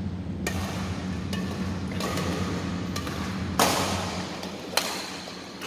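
Badminton rackets striking a shuttlecock during a doubles rally: about four sharp hits a second or so apart, the loudest about three and a half seconds in, each ringing briefly in the large hall. A steady low hum runs underneath.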